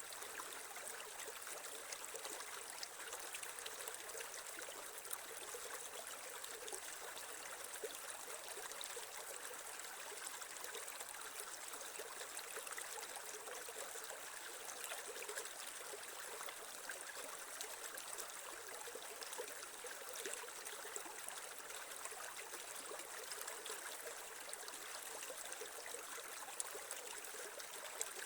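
Creek water running and trickling steadily over stones, with many small splashes and no change in flow.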